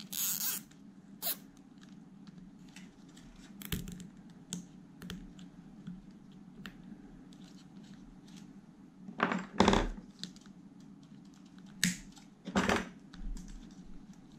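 Hands fastening a plastic cable tie around battery leads and a fuse holder: scattered small plastic clicks and rattles, with a few louder short strokes about nine to ten seconds in and again near the end.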